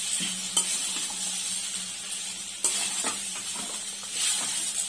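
Spatula stirring rice flakes (poha) in a stainless steel pan over a light sizzle, scraping and knocking against the pan a few times, with a louder stirring stretch near the end.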